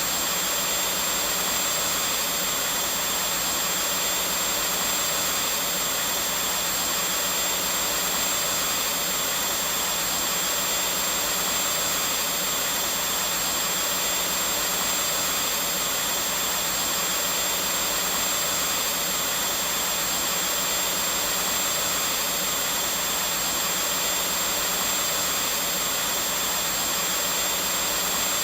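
Vacuum cleaner running steadily: a constant hissing whoosh of motor and air with a thin high whine on top, no change in pitch or level.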